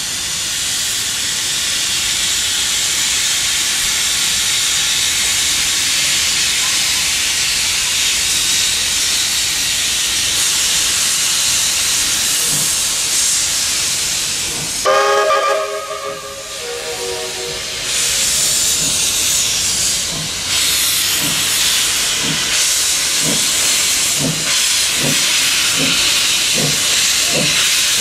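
BB18¼ class steam locomotive hissing loudly with steam vented around its cylinders. About halfway through it gives a short whistle blast of about two seconds, then pulls away, its exhaust beating in a steady rhythm of under two chuffs a second beneath the hiss of the open cylinder drain cocks.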